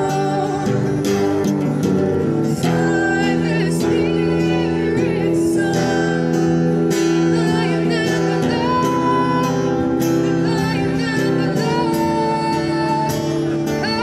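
A woman singing a worship song while accompanying herself on an acoustic guitar, amplified through a small portable PA speaker.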